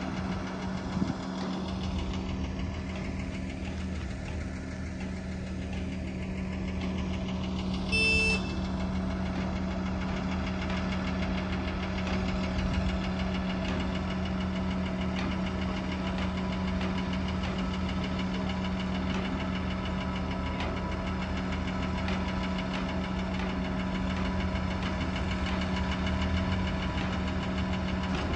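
Mobile crane's diesel engine running steadily with a constant hum while it lifts a suspended load. About eight seconds in, a short high-pitched tone sounds once.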